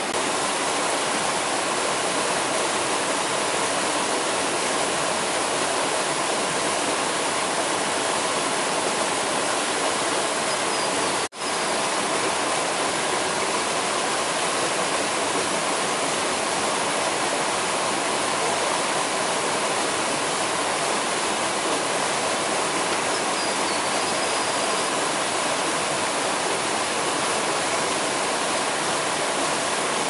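Steady rushing water, like a stream or small waterfall, an even hiss with no rhythm; it cuts out for a split second about eleven seconds in.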